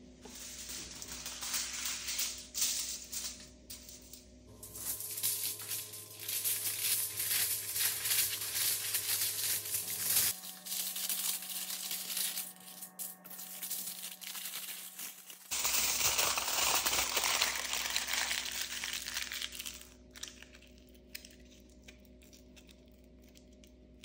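Aluminium foil crinkling and rustling as it is handled and cut with scissors, in several stretches that stop about twenty seconds in.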